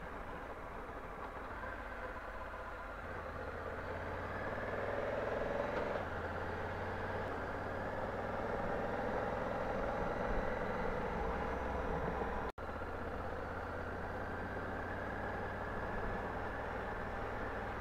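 Honda Africa Twin motorcycle engine running steadily while riding, under a continuous rush of wind and road noise. The sound cuts out for a split second about two-thirds of the way through.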